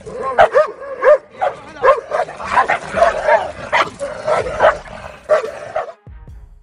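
Dogs barking in a rapid, agitated run of short barks, about three a second, during a face-off between two dogs. The barking cuts off about six seconds in.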